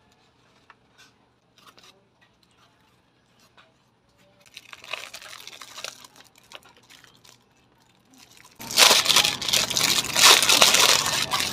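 Clear plastic wrapping around a tablet case crinkling loudly as it is handled, starting about three quarters of the way in. Before that, lighter rustling and a few soft taps of the packaging being lifted out of the box.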